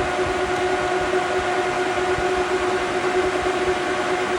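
Metal lathe running at about 600 RPM with a steady whine, parting a 1-inch steel rod with a carbide parting tool on constant power feed.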